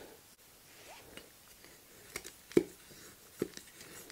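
A few short, sharp wooden taps and knocks from a whittled chopstick being handled over a wooden block, the loudest about two and a half seconds in, with faint handling noise between them.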